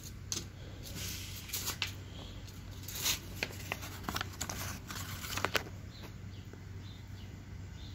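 A paper instruction sheet rustling and crinkling as it is handled and unfolded, in irregular bursts with a few sharp crackles, dying down near the end.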